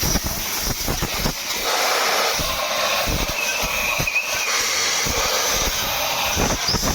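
A loud, steady hiss of a high-pressure jet cleaning a reconditioned cylinder head, with irregular low knocks underneath.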